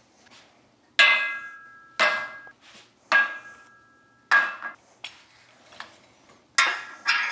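Mild-steel storage pins clanking and ringing as gear is hung on them: about six sharp metal knocks, roughly one a second, each leaving a short fading ring.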